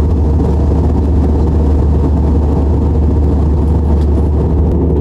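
Airliner cabin noise in flight: a steady, loud drone of engines and airflow, strongest in the deep bass.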